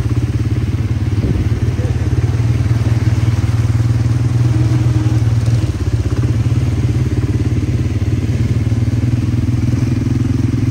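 Quad bike engine running loudly at a steady pitch.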